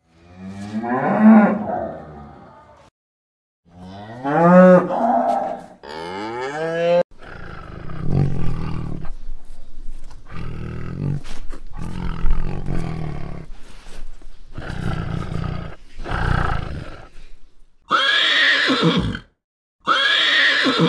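A string of different animal calls, one after another with short gaps: a low pitched call at the start, rising calls, rough noisy calls through the middle, and brighter high calls near the end.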